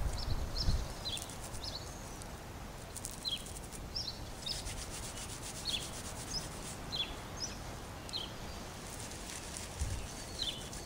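Dry whorled milkweed stems rubbed between the palms to break the bast fiber loose: a soft, dry rubbing. A bird chirps short, high, falling notes again and again over it.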